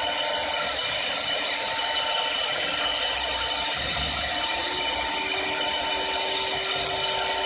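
4-axis CNC woodworking lathe running and cutting wood: a steady machining noise with a high whine, and a lower tone that comes in about halfway.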